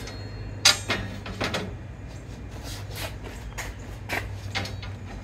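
Steel pole sections knocking and clanking against a steel fabrication table and its fittings as they are set in place: a run of sharp, separate knocks, the loudest about two-thirds of a second in, over a low steady hum.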